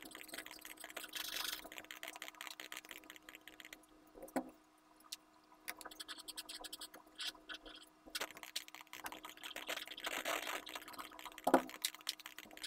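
Pencil strokes scratching on paper while shading, fainter for a few seconds in the middle. There are two soft thumps, one about four seconds in and a louder one near the end.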